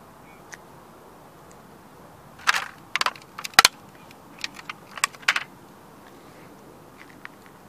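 Boot pressing down on a collectible model Ferrari: a quick cluster of sharp cracks and clicks from the model under the sole, starting a couple of seconds in and lasting about three seconds, with the loudest crack near the middle.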